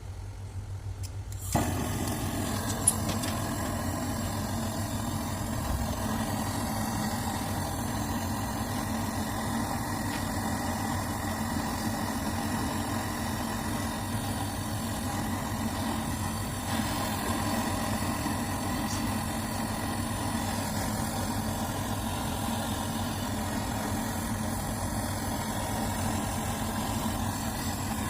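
A motor-driven machine switches on about a second and a half in and then runs steadily with a low hum. A single sharp click comes about a second later.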